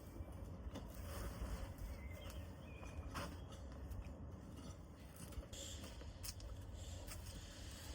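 Faint scattered clicks and knocks from a car seat being fitted back in on its rails, over a steady low hum.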